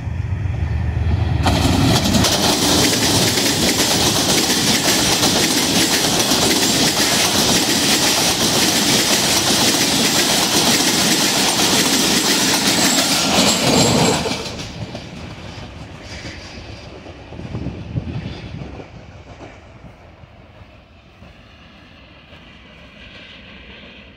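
A diesel-hauled passenger train, the Pakistan Express, passes close by. It begins with the locomotive's low engine rumble as it approaches, then the coaches' wheels clatter loudly over the rails for about twelve seconds. The sound drops away sharply a little past halfway, leaving a much quieter outdoor background.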